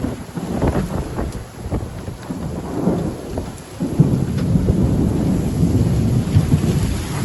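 Thunderstorm with heavy wind-driven rain pouring down and a low rumble of thunder, louder from about four seconds in.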